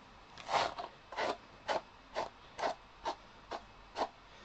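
A small hand tool drawn again and again through a patch of pink Icelandic sheep hair, about two short brushing strokes a second.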